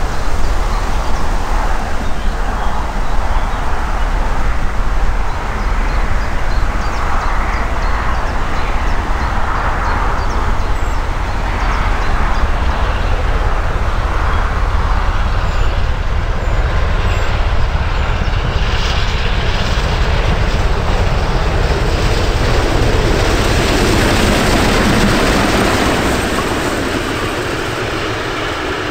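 Double-headed steam train, led by DB class 23 locomotive 23 071, approaching and passing: the steam locomotives' exhaust beats over heavy rumble and rail noise. The sound swells as the engines draw level late on, then eases off just before the end.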